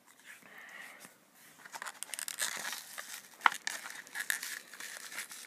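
Clear plastic toy packaging crinkling and tearing as hands pull it open. Irregular crackles start about two seconds in, with one sharp click near the middle.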